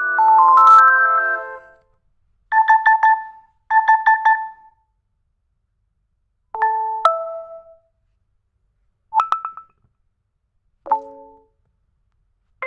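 Nokia 2.3 phone ringtones and notification tones played one after another: a melodic ringtone phrase that ends about two seconds in, two quick bursts of rapid beeps, then three short chimes, each separated by silence.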